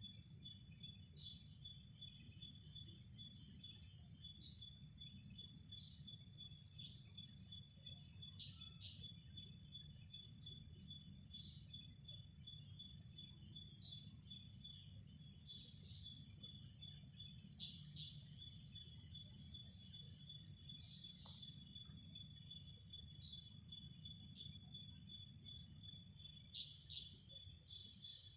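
Night insect chorus: a continuous shrill, high drone with a steady pulsing trill beneath it and scattered short chirps, over a faint low rumble.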